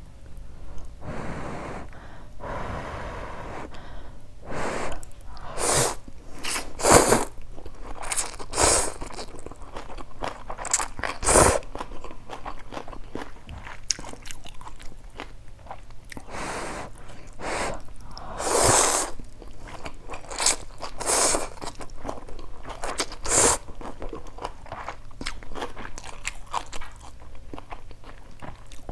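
A person eating hot instant noodles with water spinach close to the microphone: an irregular string of slurps and chewing, with longer slurps about a second in and again about two-thirds of the way through.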